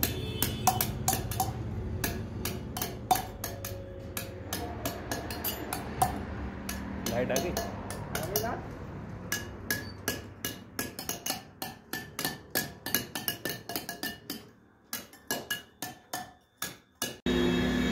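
Hammer tapping a steel chisel into sandstone while carving a pillar's relief: a long run of sharp, ringing taps, about three a second, quickening in the second half. Near the end the tapping stops and music starts abruptly.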